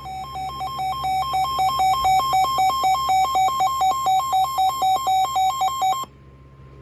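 Weather alert radio's alarm for a Severe Thunderstorm Warning: an electronic two-tone beeping, pulsing about three or four times a second, that grows louder over the first two seconds and then cuts off suddenly about six seconds in.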